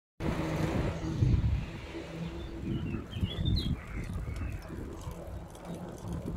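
Wind rumbling on the microphone of a bicycle being ridden along a paved lane, with a short bird call about three seconds in.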